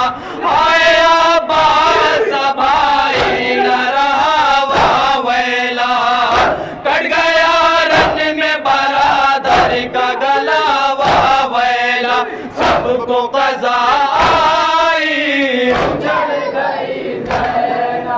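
Several men chanting a noha (Shia mourning lament) together in unison, with sharp slaps of hands striking chests (matam) recurring about once a second.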